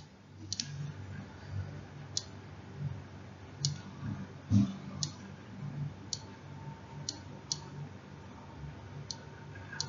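Light, sharp clicks at uneven intervals, about one a second, from a computer pointing device as field lines are drawn stroke by stroke on a slide. A soft low thump comes about halfway through.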